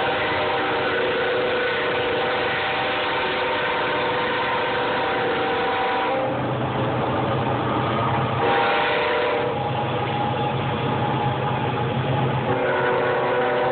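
A large engine running steadily, droning with a tone that switches every few seconds between a higher and a lower pitch.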